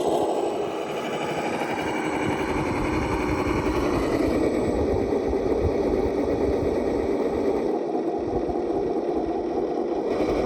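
Electric motor and gear drive of an RC rock crawler running, a steady mechanical whine whose pitch wanders a little, dipping briefly about a second in.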